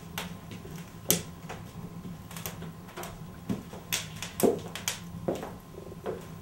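A dozen or so irregular sharp knocks and clicks, some with a duller low thud, over a low steady hum.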